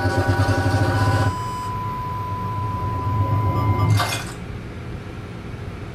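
A TV show's opening title sound playing from a TV. A sustained chord over a low hum gives way to a single steady beep-like tone for about three seconds, which is cut off about four seconds in by a short sharp crack as the on-screen title cracks.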